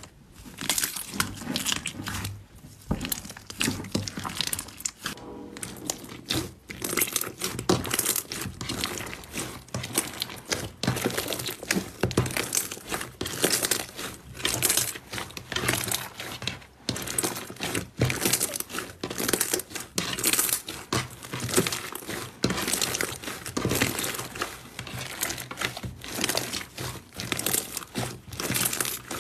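Hands squeezing, kneading and pulling apart a fluffy blue-and-white slime, giving a dense, continuous run of fine crackles and crinkles.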